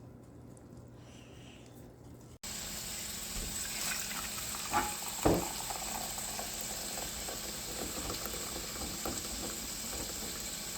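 Faint hum, then a sudden switch about two seconds in to a steady rush of running or bubbling liquid, with two short knocks a few seconds later.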